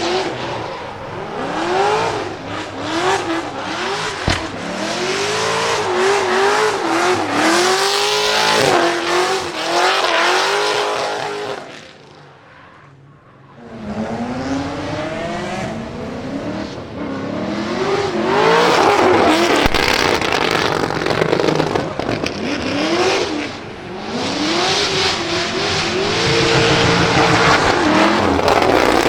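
Chevy LS7 7.0-litre V8 in a Nissan 200SX S13 pickup being driven in a drift: the revs rise and fall over and over under throttle with tyres squealing. Two sharp cracks stand out, one early and one about twenty seconds in. The sound drops away for a moment about twelve seconds in, then comes back loud.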